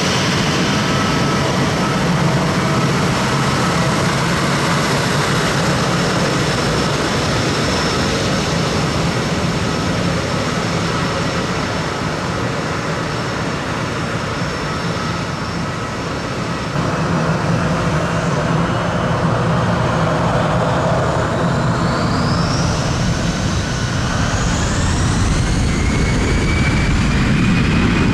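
Airbus A319 jet engines running: a broad roar with steady high whines over it. About two-thirds of the way through, the roar grows louder and the whines climb steeply in pitch as the engines spool up to takeoff thrust.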